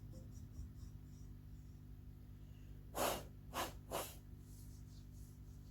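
A person breathing out sharply three times, about half a second apart, over a low steady hum.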